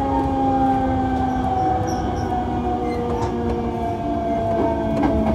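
Toshiba GTO-thyristor VVVF inverter of a Hankyu 8000 series train whining, several tones gliding slowly down in pitch as the train slows, over a steady low rumble of the running train.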